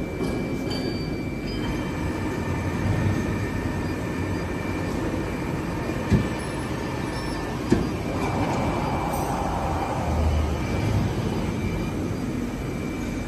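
Steady mechanical rumble and hum of a running TK6513 CNC horizontal boring and milling machine, with a thin steady whine over it. Two sharp clicks come about six and eight seconds in, followed by a short rush of hiss.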